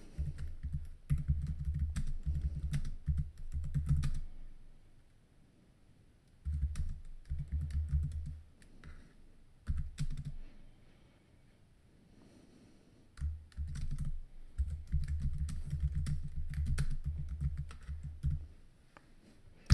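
Typing on a computer keyboard: runs of quick keystrokes, broken twice by pauses of about two seconds between phrases.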